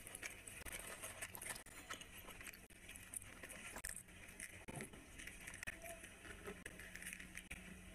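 Faint crackling and small scattered clicks of a crisp fried puri being torn by hand and worked into a curry with the fingers.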